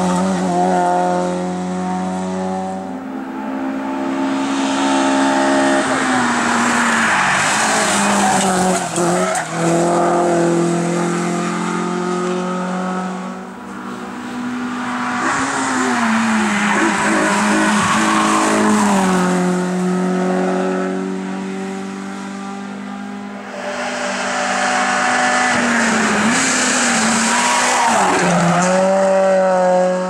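Hill-climb hatchback race cars, an Opel Corsa and Renault Clios, driven flat out one after another: engines revving high and dropping in pitch at each gear change, with tyre squeal in the bends.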